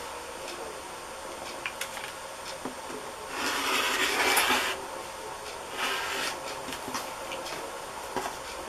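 Rotary cutter run along an acrylic ruler on a cutting mat, slicing through layers of cotton patchwork fabric to trim off the excess: one rasping cut about three and a half seconds in, lasting about a second and a half, with a few light taps before it.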